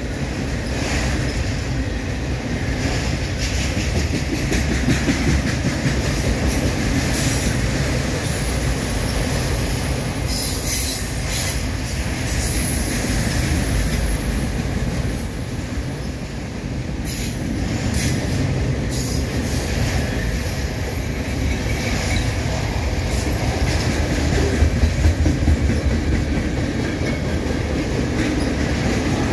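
Freight cars of a mixed manifest train (autoracks, then tank cars) rolling steadily past on the rails. There is wheel squeal at times and a quick run of clacks from wheels crossing a rail joint near the end.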